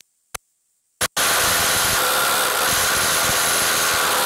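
Milwaukee cordless impact driver hammering hard in reverse, breaking loose a nut torqued to 150 foot-pounds through a hex-to-socket adapter. A few short clicks come first, then the hammering starts about a second in and stays loud and steady.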